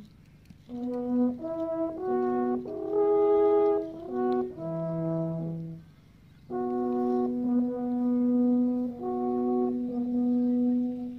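Two Swiss alphorns playing a slow melody. A phrase of shorter notes is followed by a brief pause about six seconds in, then by longer held notes.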